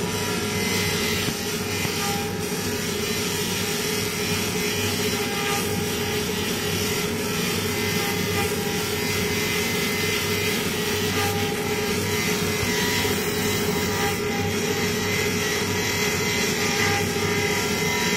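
Handheld pulsed laser cleaner working over a steel wire-mesh grill, a steady buzzing hiss as the beam burns off grease and rust, with a steady machine hum under it.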